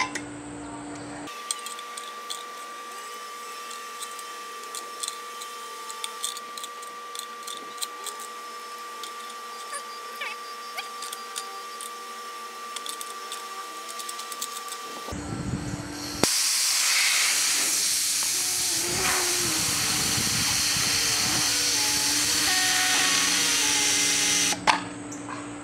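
Residual compressed air hissing loudly out of a Harbor Freight 3-gallon pancake compressor tank through its overpressure relief valve, which was popped by accident. The hiss lasts about eight seconds and cuts off abruptly near the end. Before it come faint scattered clicks of hand tools on the compressor's pump head.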